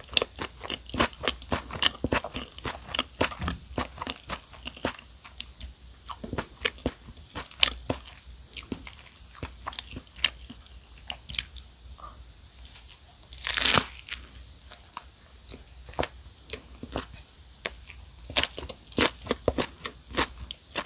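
Close-up chewing of a club sandwich with lettuce and apple slices: moist crunching and crackling in quick irregular clicks, with one louder, longer noise about two-thirds of the way in.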